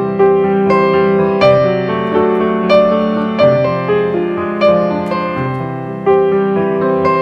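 Background piano music: a gentle melody of struck notes, roughly one or two a second, over held lower notes.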